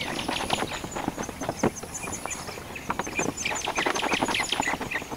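Hand-tool clicking and tapping, ratchet-like and irregular, as the grille bolts are tightened under the hood, with birds chirping.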